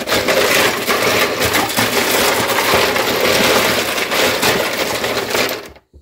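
Ice cubes clattering and crunching against each other and against the plastic walls of a refrigerator's ice bin as the bin is handled. The sound is a dense, continuous rattle of many small clicks and stops near the end.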